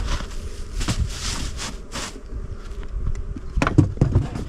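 Honeybees buzzing around open hives, with rustling at first and a cluster of thumps shortly before the end.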